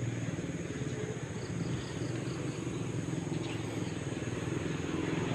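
Steady low rumble with a faint, even high insect drone over it.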